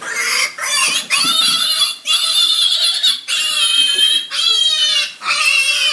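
Piglet squealing while being held, a run of about six high-pitched squeals, each up to about a second long, with short breaks between them.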